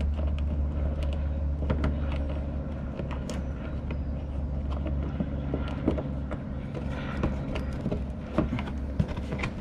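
Clicks, knocks and scraping of the plastic front wheel-well liner of a Nissan 350Z being handled and pulled down, over a steady low hum.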